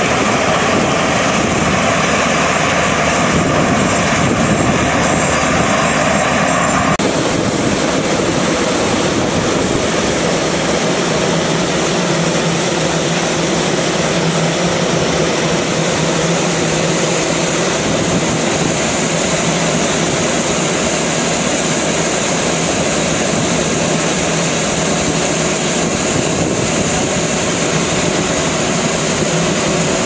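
Corn combine harvester running steadily at work, its diesel engine and threshing machinery making a loud continuous drone. About seven seconds in, the sound shifts to a denser, hissier rush over a steady low hum as shelled corn kernels pour from the unloading spout into a truck bed.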